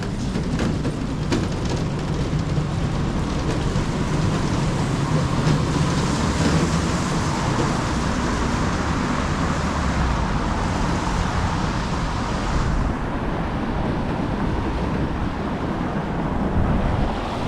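Storm wind and rain, a steady rushing noise with a low rumble; the high hiss drops away about thirteen seconds in and comes back near the end.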